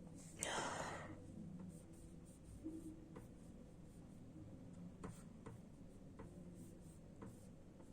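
Faint scattered clicks and light taps over a low room hum, after a short breathy hiss about half a second in.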